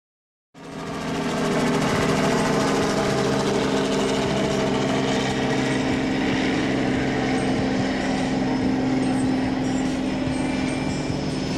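Small aircraft tug's engine running steadily as it tows an aircraft, starting about half a second in.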